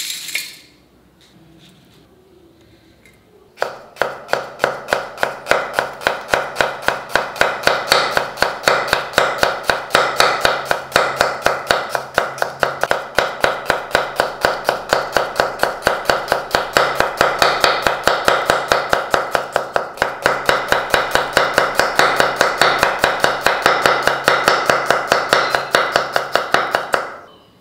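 Kitchen knife slicing a red onion on a wooden chopping board, each cut ending in a knock of the blade on the wood. The cuts come in a fast, even rhythm of about three a second, starting a few seconds in.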